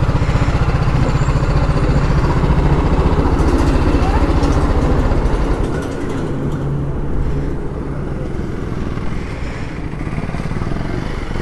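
Motorcycle engine idling close by with a fast, even low pulse. About six seconds in it drops away, leaving quieter engine sound from motorcycles rolling up at low speed.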